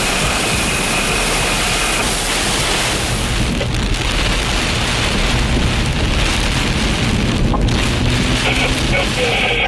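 Severe-storm wind and heavy wind-driven rain: a loud, steady rushing noise.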